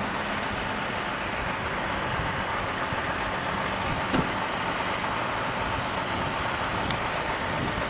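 Steady street traffic noise of vehicles running and passing on a city road, with a faint low steady hum under it.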